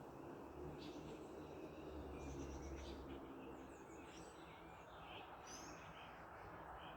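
Quiet outdoor ambience with scattered short bird chirps, over a low rumble of distant traffic that fades about three seconds in.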